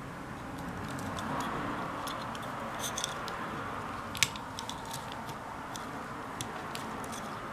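Light, irregular clicks and taps of small parts being handled, with one sharper click about four seconds in, over a steady background hiss.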